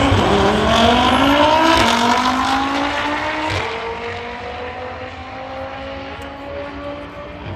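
Audi TT drag car accelerating hard down the strip at full throttle. The engine note climbs through each gear and drops back at each upshift, then fades as the car pulls away down the track.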